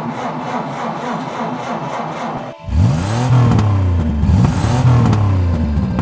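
Dubbed-in sound effect of a petrol car engine: a rough, steady running sound, then, after a brief drop about two and a half seconds in, the engine revs hard several times, its pitch rising and falling with each rev.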